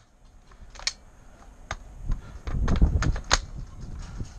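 Airsoft gunfire: sharp single shot clicks, one about a second in and another near two seconds, then a quick run of several shots a little past halfway, the last of them the loudest, over a low rumble.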